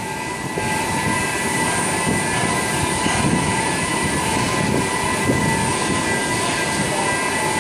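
Heavy shipyard machinery running steadily: an even mechanical drone with a constant high whine over it.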